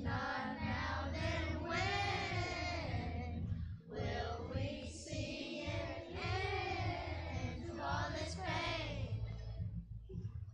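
Children's choir singing a worship song together, in sung phrases with a short break about four seconds in.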